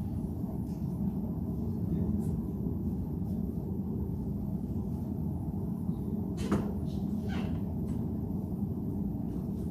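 Steady low room hum, with two light knocks about a second apart after the halfway point from footsteps stepping up onto a wooden platform.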